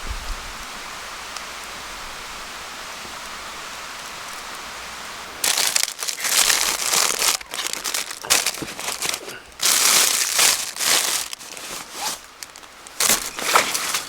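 Loud, irregular crinkling and rustling of crisp material being handled, starting about five seconds in over a steady background hiss.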